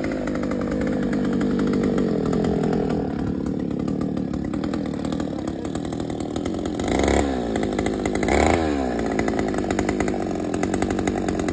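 82cc two-stroke earth auger engine running continuously, its pitch shifting under load, with two short sharp revs about seven and eight and a half seconds in.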